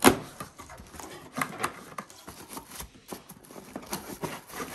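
Cardboard box and moulded pulp packaging being handled: a sharp click right at the start, then scattered light clicks, scrapes and rustles.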